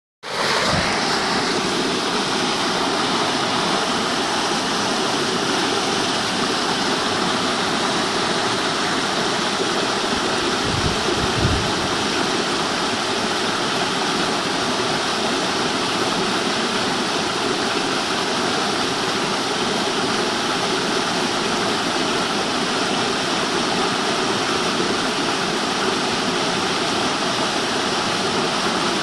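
Waterfall: a steady, loud rush of falling water, with a couple of brief low thumps about eleven seconds in.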